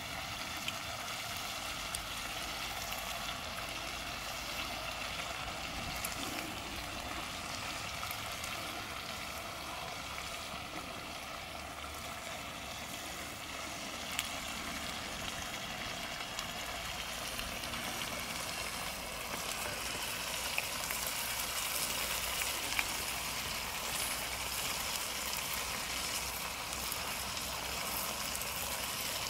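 Steady hiss of a pan of chicken curry cooking on a portable gas stove, a little louder in the second half, with a few faint clicks.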